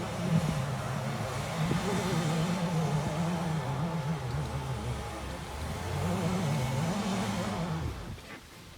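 Off-road 4x4's engine revving, its pitch rising and falling repeatedly under throttle, then dropping away near the end.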